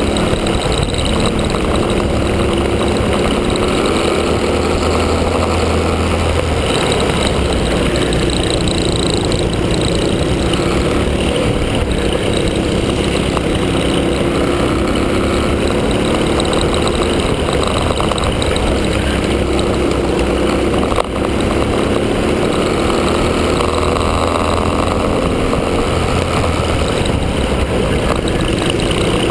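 Honda Cadet kart's small single-cylinder four-stroke engine running hard at racing speed, heard from onboard, its note rising and falling through the corners. It dips briefly about two-thirds of the way through.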